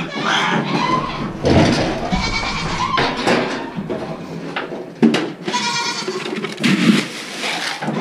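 Goats bleating, about five separate calls with a sharp knock about five seconds in.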